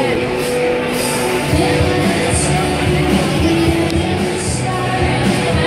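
Live rock band playing a song: electric guitar and drums with a singer.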